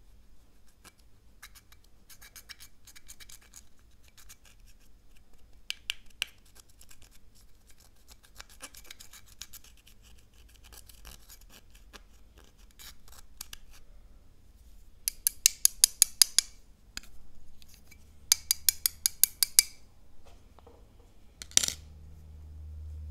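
Pressed eyeshadow being scraped and broken up with a pointed tool in a plastic palette: scratchy scraping with scattered clicks. In the second half come two quick runs of rapid, sharp clicking scrapes, and a single sharp tap follows near the end.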